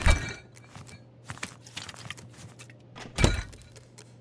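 Cartoon sound effects: two heavy thuds about three seconds apart, with light clicks and clatter between them.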